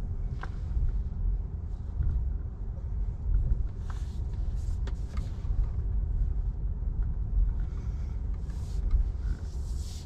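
Coin-operated car wash vacuum running with a steady low rumble. The hose nozzle's suction hiss swells in short bursts several times, with a few light knocks.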